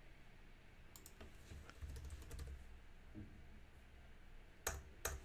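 Faint computer keyboard typing: a few scattered keystrokes, then two louder clicks near the end.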